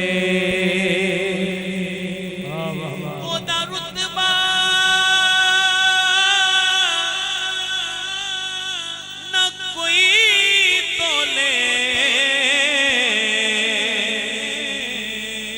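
A man chanting a Punjabi naat without instruments, drawing out long, wavering melodic notes, loudest about ten seconds in.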